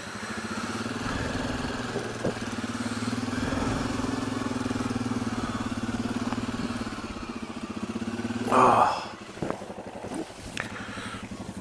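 Suzuki KingQuad 750 ATV's single-cylinder engine running steadily at low speed along a dirt trail, then settling to a quieter idle about nine seconds in as it stops. A short burst of voice comes just before the engine drops.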